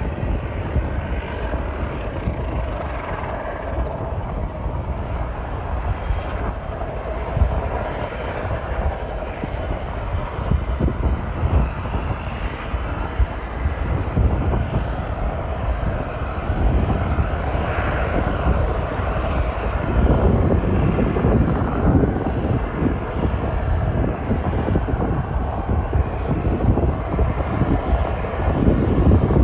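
Airliner engines rumbling steadily, growing louder about two-thirds of the way through.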